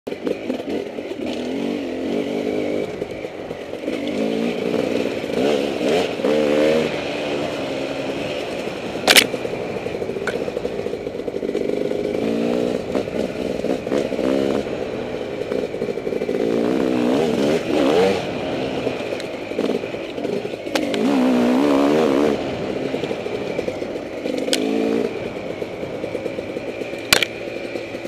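Off-road motorcycle engine revving up and easing off again and again as it is ridden, with a few sharp knocks, the loudest about nine seconds in and another near the end.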